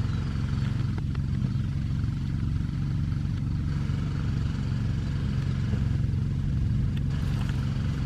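An engine running steadily at an even speed, a constant low hum with no revving.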